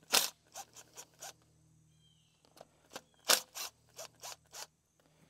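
Cordless power driver and socket working the glow plugs loose on a Kubota D662 three-cylinder diesel: two runs of short, quick metallic sounds, one at the start and another about three seconds in.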